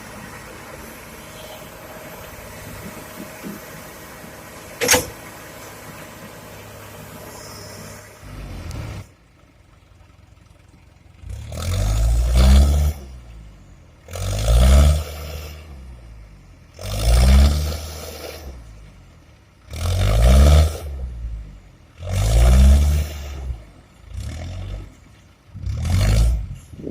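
Komatsu PC200 excavator's diesel engine idling steadily with a single sharp click. It then revs up again and again under hydraulic load, seven surges each a second or two long, as the machine works.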